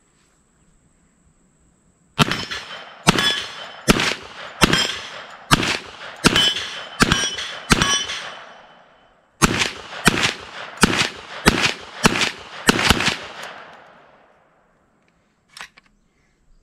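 TNW Aero Survival Rifle, a 10mm carbine, firing semi-automatic: about eight shots just under a second apart, a pause of about a second and a half, then about six more. Hits ring on steel target plates.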